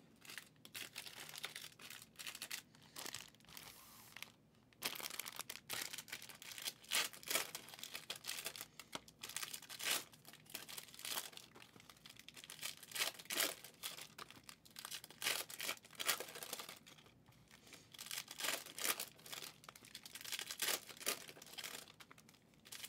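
Foil trading-card packs from a 2023 Prizm football Mega box being torn open and handled: a string of short tearing, rustling and crinkling sounds from the wrappers and cards, with a brief pause about four seconds in.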